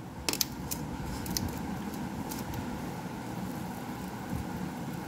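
Steady low background hum, like a fan running, with a few faint clicks and crackles in the first two seconds as hands handle a crisp fried potato cheese ball over a steel plate.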